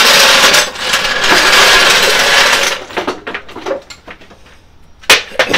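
Steel floor jack being pulled out across a concrete driveway, a loud rattling scrape for about three seconds. It is followed by a few light knocks and two sharp metal clanks near the end.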